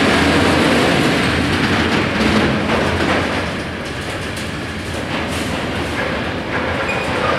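Freight train of tank wagons rolling past at close range: a steady rumble and rattle of steel wheels on rail, with scattered knocks as the wheels cross the rail joints.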